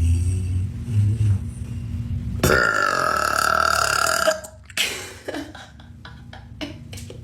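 A young woman burping: a low rumble, then a long, steady burp lasting nearly two seconds, starting about two and a half seconds in.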